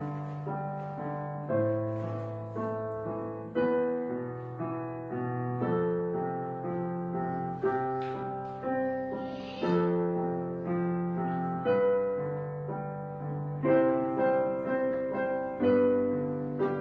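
Background music of slow piano, with notes struck one after another and fading and a bass note changing about every second.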